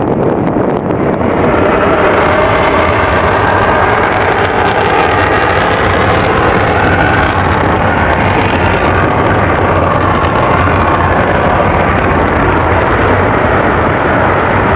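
Twin jet engines of an F/A-18 Super Hornet at takeoff power on the takeoff roll: a loud, steady jet roar with a faint shifting whine in it, stepping up about a second in.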